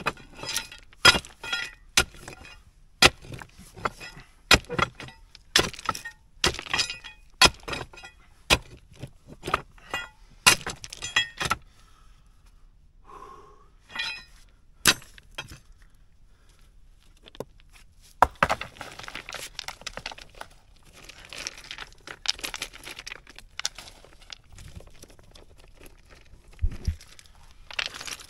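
Metal bar striking and prying among loose stones, giving sharp clinking knocks about once a second, then stones rattling and scraping as they are shifted, with a few more knocks near the end.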